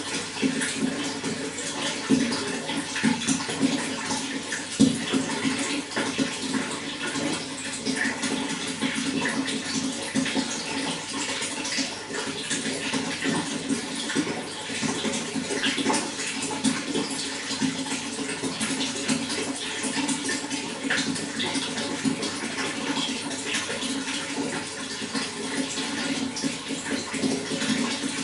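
Running water flowing steadily, a continuous rush broken by many small splashes.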